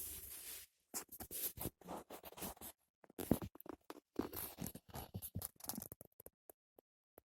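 Irregular scratching and rustling noises in short clusters, starting and stopping every second or so.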